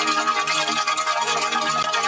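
Music: a looping sound-effect track with held notes under a fast, busy shimmer.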